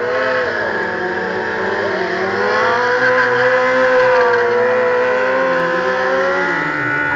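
Stunt motorcycle engine held at high revs, its pitch wavering up and down, loudest about four seconds in.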